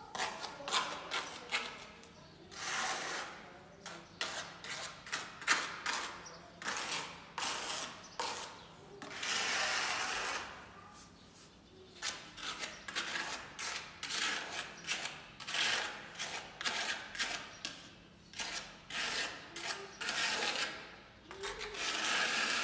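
Trowel scraping and spreading wet cement along a wall above a skirting tile, in many short strokes with a few longer smears.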